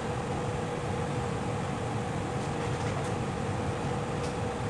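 Steady machine hum with a constant pitched drone over a rushing noise, unchanging throughout, with a few faint light ticks in the second half.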